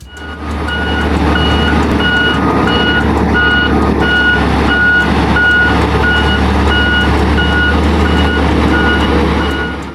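Truck reversing: its engine runs steadily with a loud rumble while its reversing alarm beeps about twice a second.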